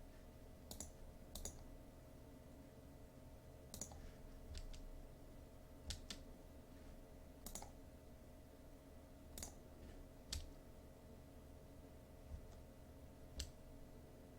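Computer mouse clicking: about ten single clicks, spaced unevenly, over a faint steady hum.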